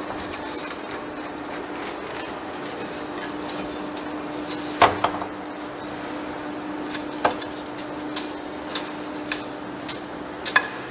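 Heavy-duty face lathe turning a large steel rotor shaft, with a steady machine hum and hiss as the tool cuts. A sharp metallic click comes about halfway through, then light clicks at about two a second to the end.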